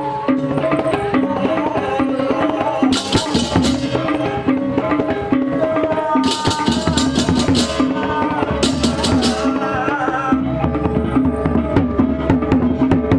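Balinese gamelan procession music of the baleganjur kind. Pitched gongs and drums play continuously, and bursts of clashing cymbals come in three stretches, about three, six and nine seconds in.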